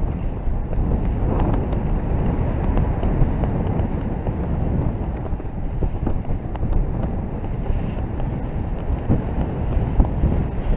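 Airflow rushing over the microphone of a camera carried by a paraglider pilot in flight: a steady, deep wind rush with a few faint clicks.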